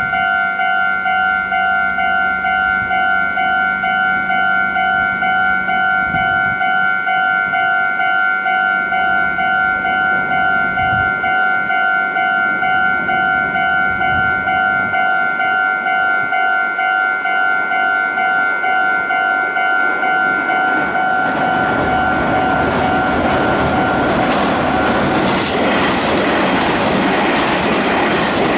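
A Japanese level crossing's electronic warning bell rings in a steady, evenly repeating clang. About twenty seconds in, a Meitetsu electric train comes through and gets louder, its wheels clattering over the rail joints while the bell keeps ringing.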